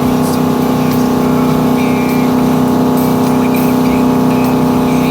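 Motorboat engine running steadily at constant speed, a continuous even drone.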